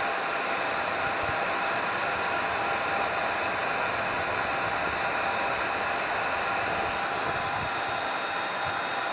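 Hair dryer running steadily: an even rushing blow of air with a faint motor whine, used as soothing white noise to put a baby to sleep.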